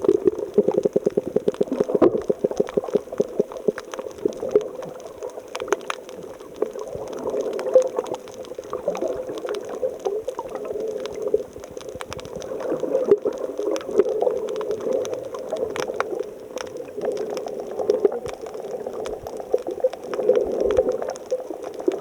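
Water bubbling and gurgling, a steady churning sound with many small clicks and pops throughout.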